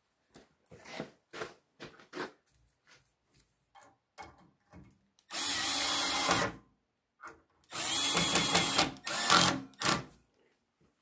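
Power drill driving screws into wood: two runs of about a second each, then two short bursts as the screws seat. Light scattered clicks of handling come before the drill starts, about halfway in.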